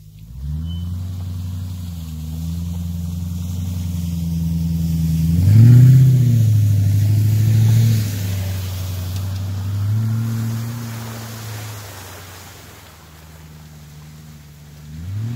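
2001 Mercedes ML430's V8 engine with the muffler and resonator deleted, pulling under throttle in surges. The engine note rises about half a second in, climbs hardest around six seconds, swells again around ten seconds and once more near the end.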